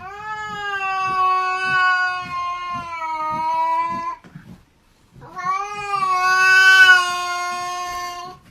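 A pet animal's two long, drawn-out calls, each held at a steady pitch, the first about four seconds and the second about three, with a short pause between them.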